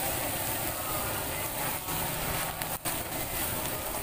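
Battered short mackerel and shrimp fritters deep-frying in two woks of hot oil, a steady sizzling hiss.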